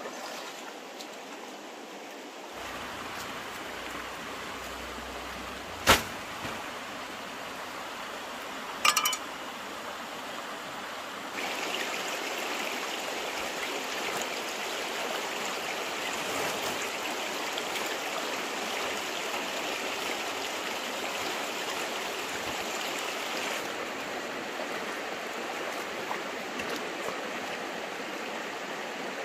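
Stream water flowing steadily, growing louder about a third of the way through. A single sharp knock about six seconds in and a brief clatter of knocks around nine seconds stand out over the water; the first knock is the loudest sound.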